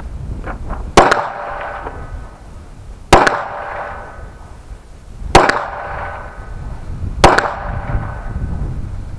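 Four pistol shots from a Smith & Wesson M&P 9mm, fired one at a time about two seconds apart, each followed by a short ringing tail. Wind rumbles on the microphone between shots.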